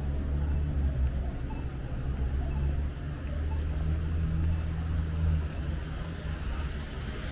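Motor vehicle engine running close by, a low steady rumble that eases off about six seconds in.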